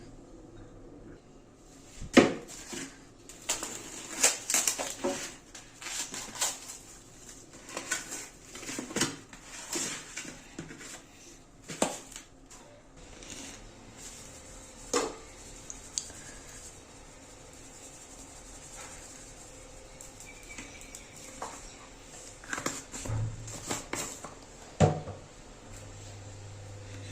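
Kitchenware clinking and clattering: utensils, bowls and dishes knocked about at an irregular pace, busiest in the first half and sparser after. A low hum comes in near the end.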